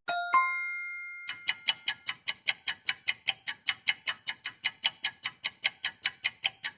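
A short two-stroke chime rings out and fades, then a clock-ticking sound effect starts: fast, even ticks at about four a second.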